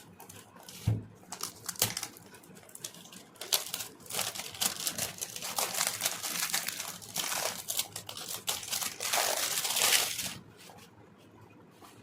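Product packaging being handled and unwrapped: two light knocks about a second apart, then crinkling and rustling that starts about three and a half seconds in, is loudest near its end, and stops about ten seconds in.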